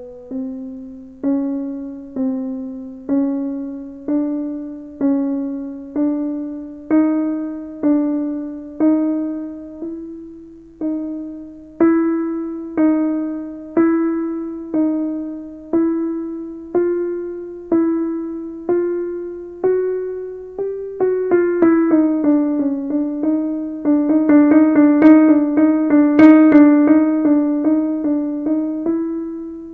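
Kurzweil KA90 digital piano's piano voice playing single notes about once a second, each fading away, stepping slowly upward in pitch. About two-thirds in, the notes turn to a fast, louder run that dips and then climbs again.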